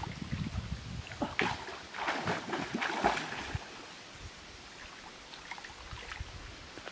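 Water splashing and sloshing as people wade and swim through a stream, busiest in the first half, then settling to a quieter steady rush of water.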